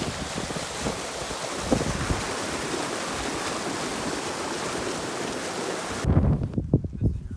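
Steady rushing of water, like a fast river. About six seconds in it cuts off abruptly and gives way to low, irregular thuds and rumbling.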